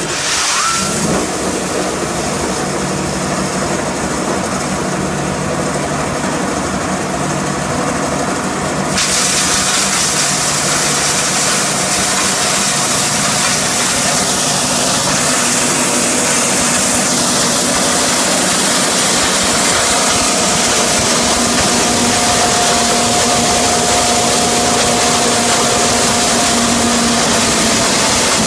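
Electric hammer mill for wood chips switched on: a sudden start with a short rising whine as the rotor spins up, then a loud, steady whirring drone. About nine seconds in it grows louder and harsher.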